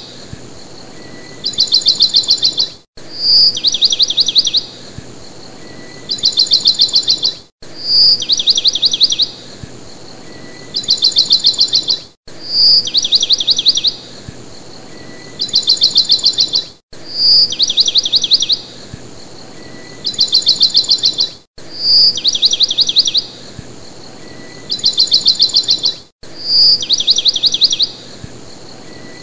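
A looped recording of a bird call: a short high note, then a rapid high trill, a pause and a second trill. The pattern repeats identically about every four and a half seconds, with a brief dropout at each loop point.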